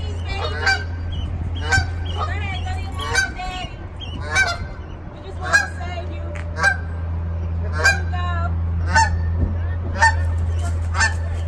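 Adult Canada geese honking, about ten loud calls evenly spaced roughly a second apart, over a steady low hum.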